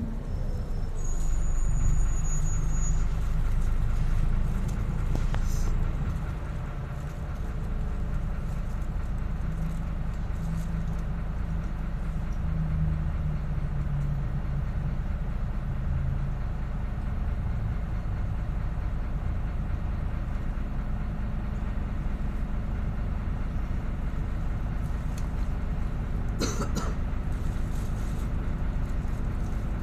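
Diesel engine and cabin rumble heard from inside an Irisbus Agora S city bus, a steady low drone that is louder for the first several seconds, dips briefly, then runs steadily. There is a brief sharp noise near the end.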